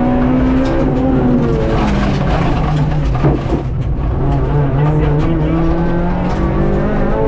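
Honda Civic Type R FN2's four-cylinder engine heard from inside the cabin, pulling hard with the pitch climbing. About halfway through the note drops away as the driver lifts off for a bend, then it climbs again as the car accelerates out.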